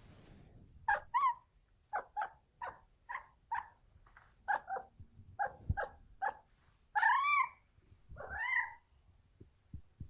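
A cat complaining: about a dozen short, quick mews, often in pairs, then two longer drawn-out meows that rise and fall in pitch near the end.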